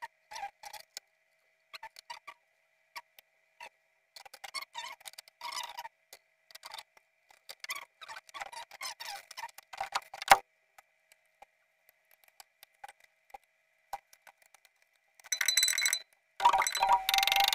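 Fast-forwarded sound of studio equipment being handled and set up: scattered quick clicks and knocks. From about 15 seconds in, a much louder run of tabla strokes takes over.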